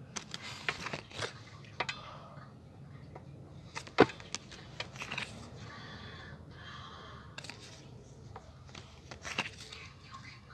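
Pokémon cards and their packaging being handled: rustling, sliding and scraping with scattered small clicks, and one sharp snap about four seconds in.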